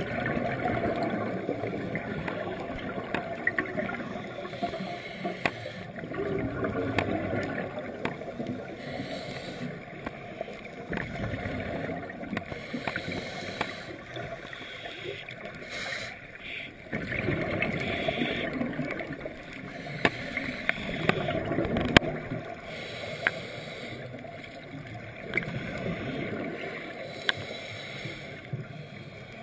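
Scuba regulator exhaust bubbles gurgling and rumbling in surges every four or five seconds as a diver breathes out, heard muffled underwater through a GoPro housing, with scattered sharp clicks.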